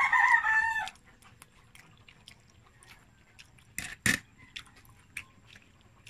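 A rooster crows once, loud and about a second long, at the very start. Afterwards only scattered small clicks and taps, with two sharper clicks about four seconds in.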